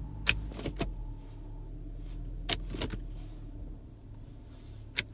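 A run of short, sharp clicks and clacks from an Infiniti G37's automatic shifter and console trim being worked by hand, coming in small groups over a steady low hum.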